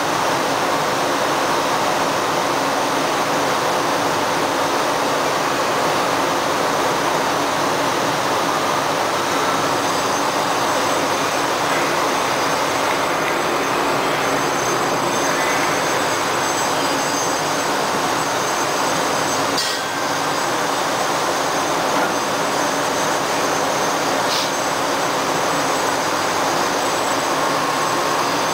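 Steady rushing of water flooding a Panama Canal lock chamber, churning up against the concrete walls as the chamber fills. Faint high whines join in from about ten seconds in.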